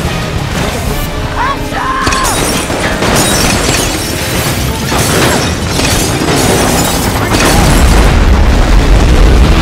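Several action-film soundtracks playing over one another: film-score music mixed with booms and crashes, with a heavy low rumble growing louder in the last couple of seconds.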